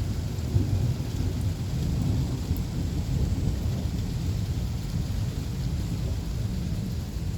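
Steady rain falling with a continuous low rumble of thunder during a severe thunderstorm.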